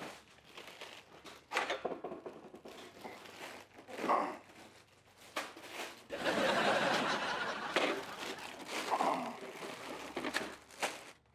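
Rustling of plastic bags and dry fruits clattering into a steel bowl on a weighing scale, in short bursts, with the fullest stretch about six seconds in.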